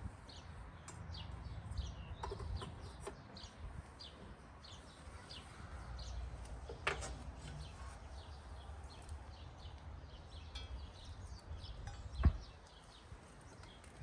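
Birds chirping over and over in short high notes, with two sharp knocks, one about seven seconds in and one near twelve seconds, over a low steady rumble.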